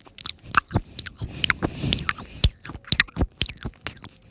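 A person chewing a cookie, a quick, irregular run of crisp crunches.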